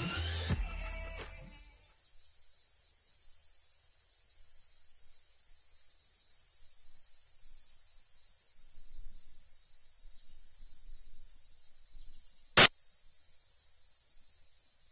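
A steady high-pitched chorus of crickets chirring, after the tail of the music dies away in the first half second. Late on, a single short, loud burst of noise cuts across it.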